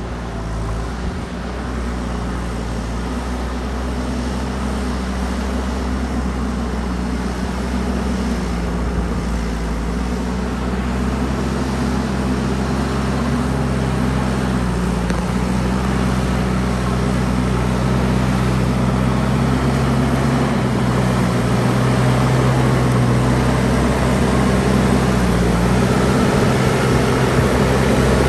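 JCB backhoe loader's diesel engine running at working speed, its pitch shifting slightly a few times as the load changes, getting gradually louder.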